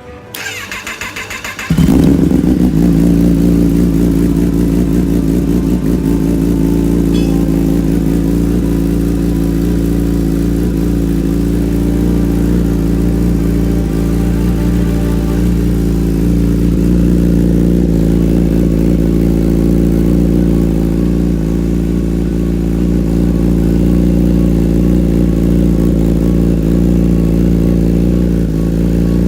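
2017 Kawasaki ZX-10R's inline-four cranking on the starter for about a second and a half, then catching and settling into a steady idle through a freshly installed Brock's full 4-into-1 exhaust system. It is the bike's first start after the exhaust and Power Commander 5 install.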